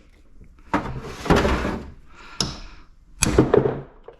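Several sharp metal knocks and clatters from a scrap air-filter unit being pried and knocked apart by hand.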